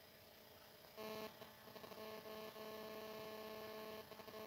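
A faint steady hum of several tones that comes in about a second in and drops out briefly near the end.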